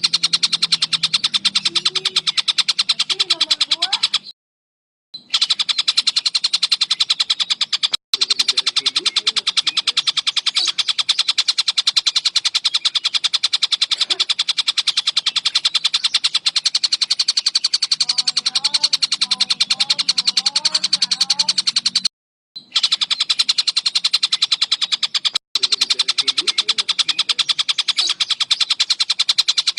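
A tengkek buto kingfisher calling: a loud, fast, unbroken run of sharp repeated high notes, stopping for a brief silence a few times. Fainter, lower whistles of other birds sit underneath.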